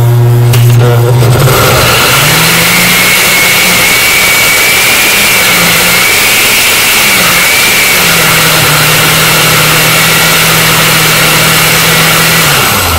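Countertop blender motor running, puréeing a thick load of chopped onions, peppers and garlic. About a second and a half in, the low hum gives way to a higher whir with the rush of the mix churning. The pitch wavers a few times, then holds steady until the motor shuts off near the end.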